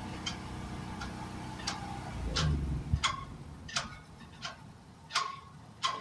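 Vehicle turn-signal or hazard flasher clicking at an even pace, a little over one click a second, heard inside the truck's cab. An idling engine hum underneath stops a little over two seconds in.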